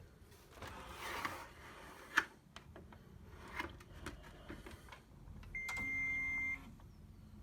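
Plastic handling noises and clicks, with one sharp click about two seconds in, then an HP LaserJet all-in-one printer beeping: one steady high electronic tone lasting about a second.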